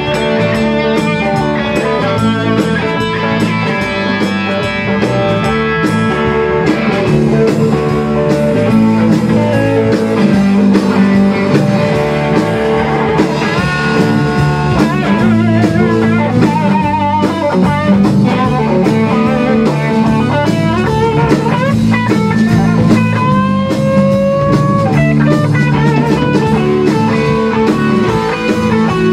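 A rock band playing an instrumental passage live: electric guitars over a Tama drum kit, with a lead guitar line of held notes with vibrato and string bends in the second half.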